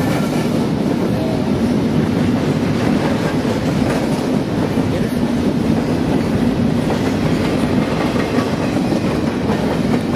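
Freight train rolling past, a steady noise of many wheels running on the rails.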